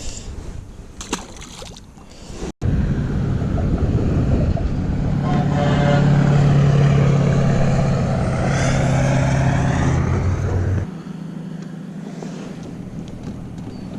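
A boat motor running steadily with a low hum, which stops abruptly about eleven seconds in.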